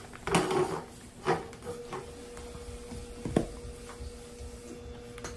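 Metal bar-stool leg frame being lifted and turned over by hand: a short rattle, then a few separate knocks about a second apart, over a faint steady hum.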